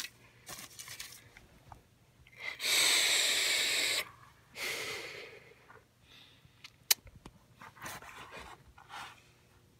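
A person blowing a long, hard breath right onto the microphone for about a second and a half, then a shorter, weaker breath. A single sharp click follows near the end.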